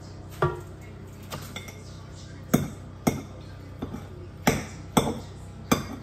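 A ladle knocking and scraping against a metal cooking pot as bean batter is scooped out, giving a series of sharp, ringing clinks, the loudest in the second half.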